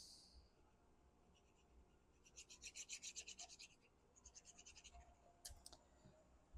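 Faint, rapid scratchy rubbing of paper cardstock, about ten strokes a second in two short runs, followed by a couple of light clicks.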